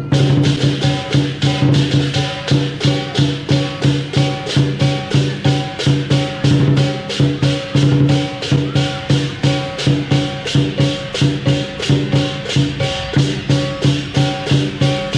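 Chinese lion dance percussion band, a big drum with clashing cymbals, playing a fast steady beat of about three to four strokes a second.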